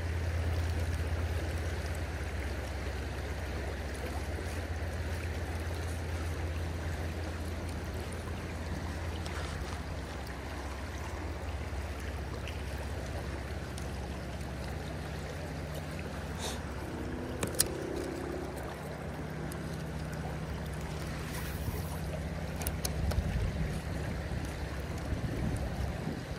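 River current rushing steadily around the wading angler, with a low steady rumble beneath it and a couple of sharp clicks past the middle.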